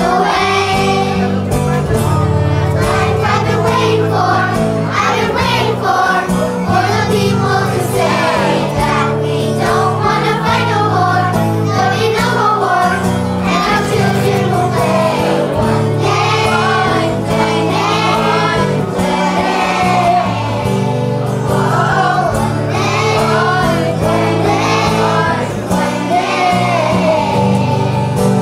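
Children's choir singing a song together over instrumental accompaniment with sustained low notes.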